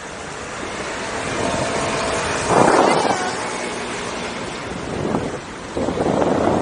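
Wind buffeting the microphone while riding, as a steady rush that swells in strong gusts about two and a half seconds in and again near the end.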